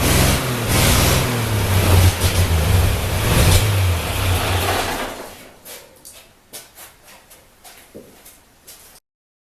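Ford 8N tractor's flathead engine running unevenly, then dying out about five seconds in, leaving only faint scattered clicks. The owner traced this quitting to fuel starvation: the engine was starving for gas with a full tank.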